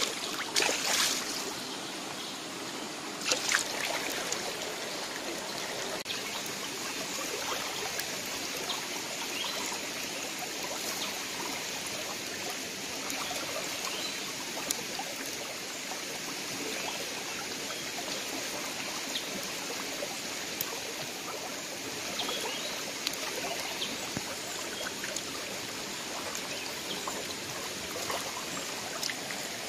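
Shallow rocky stream running steadily, with a few short splashes in the first few seconds.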